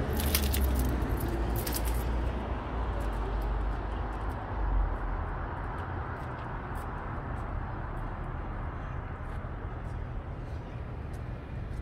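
Metal jingling for about the first two seconds, then faint scattered clicks, over a steady low rumble.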